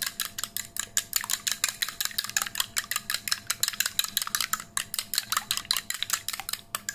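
Two eggs being beaten with chopsticks in a small white ceramic bowl: a fast, even run of clicks as the chopsticks strike the bowl, several strokes a second. The eggs are being given extra beating so they cook up fluffy.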